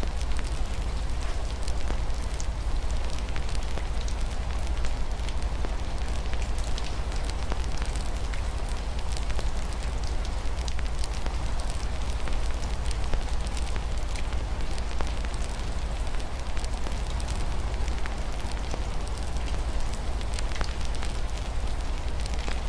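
Wood fire crackling in a fireplace, with frequent small sharp pops over a steady hiss of rain on a window and a low steady rumble underneath.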